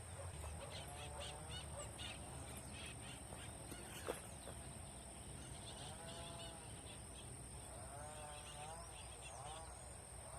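Faint outdoor ambience of animal calls: short series of arched notes that rise and fall, repeated every couple of seconds over a steady high-pitched tone. A single sharp click comes about four seconds in.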